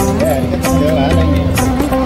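Background music with sustained tones, steady drum strokes and a wavering melody line.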